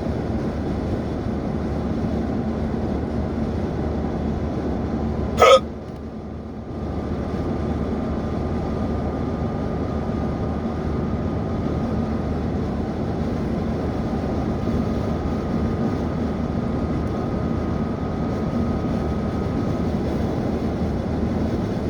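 A single short, sharp hiccup about five seconds in, over a steady background hum.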